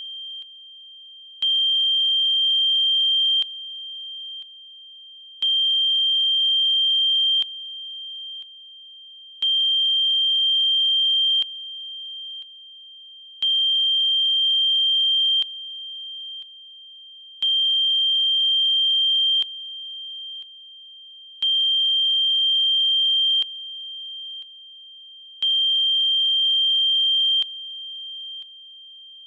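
Electronically generated high-pitched sine tone of the kind used as a Rife frequency. It holds one steady pitch but pulses in loudness in a repeating four-second cycle, about two seconds loud with fainter lower and higher tones joining, then two quieter steps. It stops abruptly.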